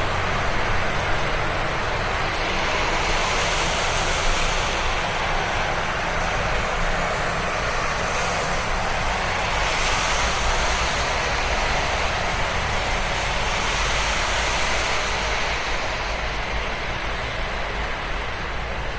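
Road traffic on a wet road: a steady hiss of tyres on wet pavement over a low engine rumble. Cars swish past about three times, each hiss swelling and fading over a second or two.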